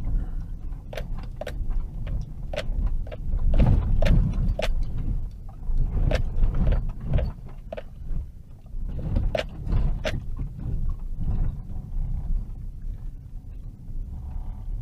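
A vehicle driving slowly over a rough dirt road, heard from inside the cabin: a low rumble from the tyres and running gear, with many irregular sharp clicks and knocks as the vehicle jolts over the bumps.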